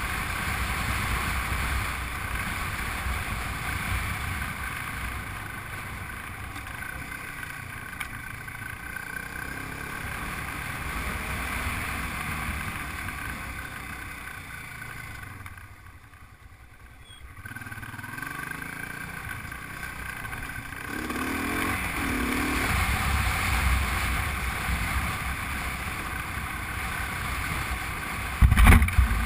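Honda Transalp V-twin engine running under way on a dirt track, mixed with wind and the rumble of riding, heard through a GoPro action camera. It goes quieter for a moment about halfway through and picks up again, and a sharp knock sounds near the end.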